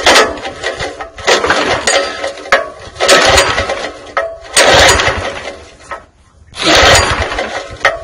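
Recoil pull-starter on a Craftsman tiller's small overhead-valve engine, pulled about five times. Each pull is a second-long whir of the rope and the engine turning over, and the engine does not catch.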